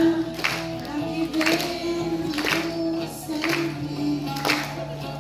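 A woman singing a slow song with long held notes into a microphone, accompanied by an acoustic guitar strumming about once a second.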